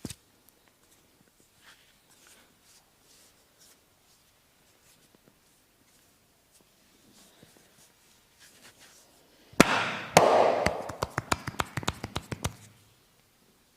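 Massage sounds from a barber's hands: soft faint handling, then near the end a louder rubbing burst followed by about two seconds of rapid, sharp cracks and slaps.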